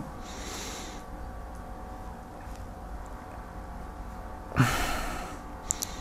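A man's breathing in a quiet room with a faint low hum. There is a soft out-breath at the start, then one loud short breath about four and a half seconds in, followed by a couple of small clicks of the lips.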